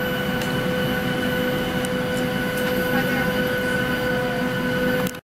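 Steady cabin air-conditioning noise inside a parked Boeing 737-800: an even rushing hum with a constant whine on top.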